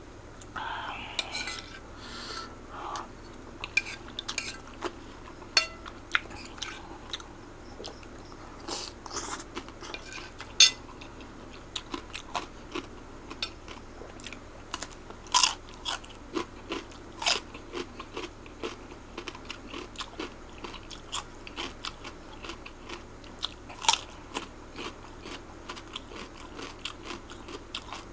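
Close-miked eating of Aceh fried noodles: chewing, with cutlery clicking and scraping on the plate in many short, sharp, irregular ticks.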